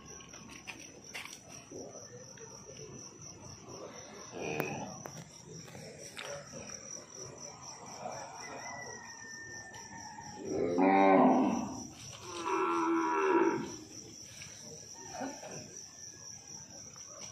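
Cattle mooing twice in quick succession, two loud calls about two thirds of the way in, over a steady high insect trill.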